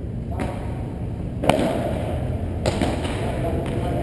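A padel ball being hit during a rally: one sharp pop of ball on racket about one and a half seconds in, with a few fainter knocks, over a steady low hum.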